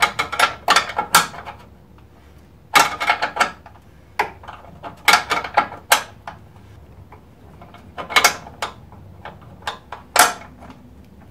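Metal wrench clicking and clinking on a transmission cooler line fitting as it is tightened into an aluminum radiator, in short runs of sharp clicks a second or two apart.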